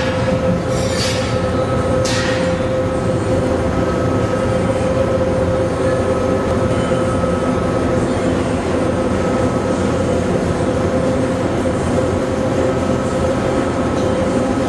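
A 2008 VW GTI's 2.0 L turbocharged four-cylinder idling steadily through a 3-inch Magnaflow cat-back exhaust with no resonator, a constant drone with no revving. A few short hisses sound in the first two seconds.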